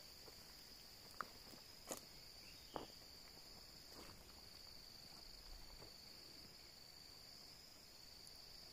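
Faint, steady high-pitched drone of an insect chorus in the forest. Three short, sharp clicks come about one, two and three seconds in.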